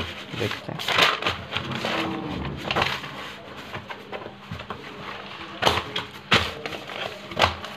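Handling noise: scratchy rustling, then three sharp knocks near the end.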